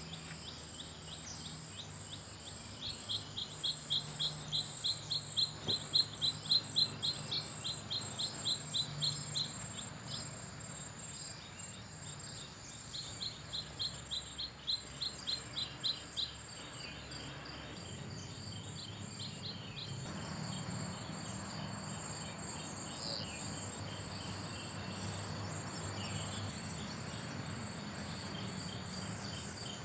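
Forest insect chorus: a steady high drone, with bouts of rapid high chirps, about four or five a second, through the first half that fade out about two-thirds of the way in.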